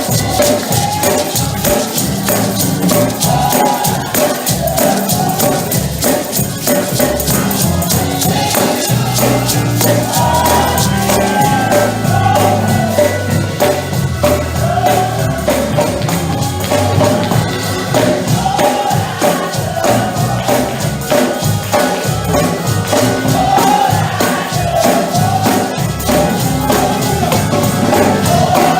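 Gospel praise music: a choir singing over a fast, steady tambourine rhythm and a stepping bass line.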